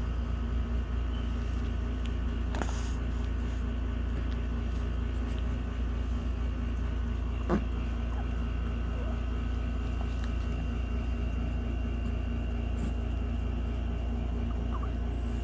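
A steady low rumble with a constant hum, broken by two faint clicks a few seconds apart and a brief high squeak near the end.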